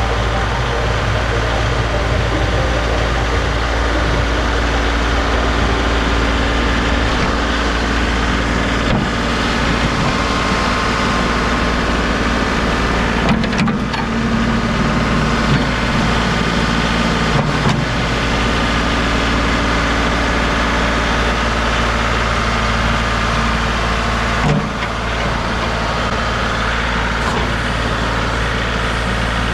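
Tractor engine running steadily while plowing snow, its note wavering for a few seconds midway and dipping briefly near the end.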